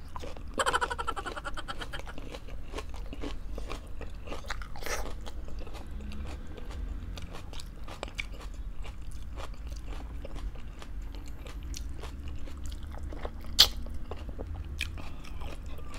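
A person biting and chewing a mouthful of food, with crunching and a steady stream of small wet mouth clicks; one click stands out louder near the end.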